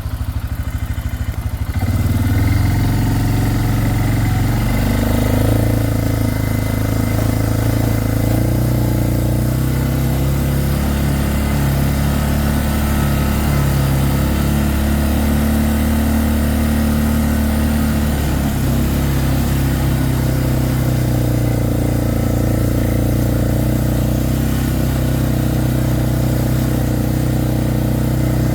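Four-wheeler (ATV) engine running. It picks up about two seconds in, then holds steady with small rises and dips in pitch.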